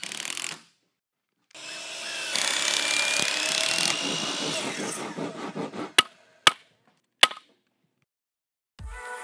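A brief power-tool buzz, then a power saw cutting through wood for about four seconds with a faint whine that rises slightly in pitch. Three sharp knocks follow, about half a second apart.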